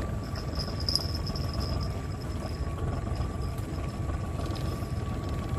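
Small boat's engine running at idle, a steady low rumble, with a thin high tone over the first half.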